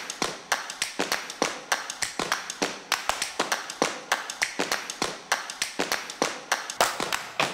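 Rhythmic percussion of sharp claps and taps in a quick, steady pattern, with louder accents about twice a second and lighter hits between.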